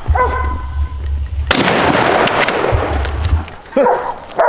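Hunting dogs baying on a wild boar chase: a short falling yelp at the start and another near the end. Between them, a sudden loud rushing noise starts about a second and a half in and lasts about two seconds.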